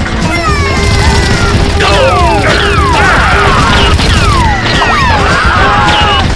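Loud edited soundtrack: music layered with action sound effects, many quick falling, whistling glides over a heavy low rumble, with crash-like hits.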